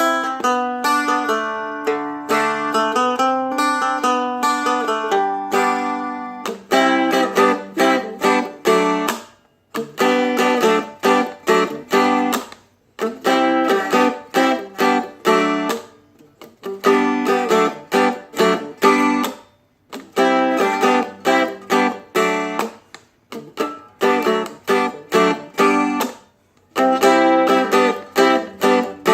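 Seagull Merlin M4, a four-string fretted dulcimer-style instrument, strummed. Ringing chords for about six seconds, then a choppy rhythm of short chord strokes with brief breaks between phrases.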